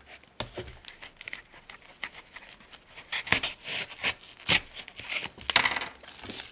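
Small cardboard parcel being handled and cut open with a knife along its taped seams: irregular scrapes and rustles of blade, tape and cardboard, loudest about three seconds in and again near the end.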